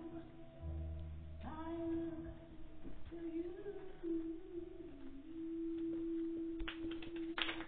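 Closing bars of a gospel song played for a praise dance: a woman's voice holding long notes over soft backing. Near the end a patter of claps starts.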